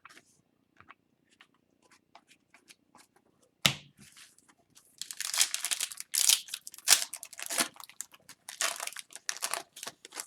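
Hockey card pack being torn open by hand: a few light ticks, a sharp rip almost four seconds in, then the wrapper crinkling and crumpling in quick bursts.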